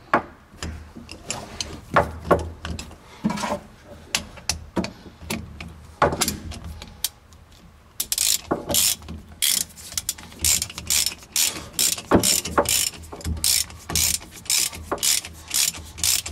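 Hand ratchet wrench with a socket extension clicking as it turns a differential mounting bolt in through the trunk access hole. Scattered single clicks at first, then a fast, steady run of clicking from about halfway as the bolt is run in.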